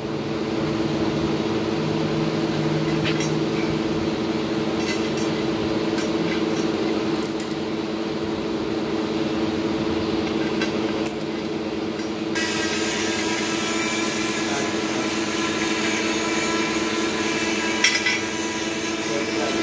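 Steady hum of running workshop machinery, with scattered light metal clinks from bolts and parts being handled on a steel roller block and one louder knock near the end. A higher hiss joins about two-thirds of the way through.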